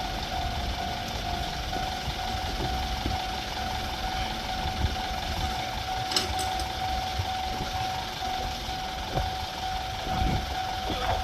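Japanese railway level-crossing warning alarm ringing continuously at one steady pitch, over a low rumble.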